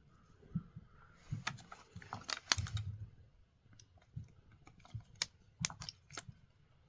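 Irregular sharp clicks and light plastic knocks from hand work on a chainsaw's primer bulb and its housing, as the old bulb is worked loose. The loudest cluster comes about two and a half seconds in, and a few more sharp clicks follow near the end.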